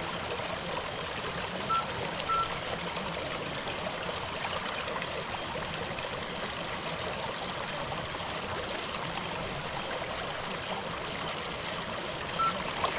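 A stream running steadily with a constant rushing sound. Two pairs of short high chirps come through, one pair about two seconds in and another near the end.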